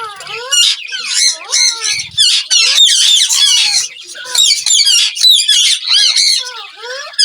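Several Indian ringneck parakeets squawking and screeching at once, a dense run of loud, high-pitched sweeping calls with short breaks.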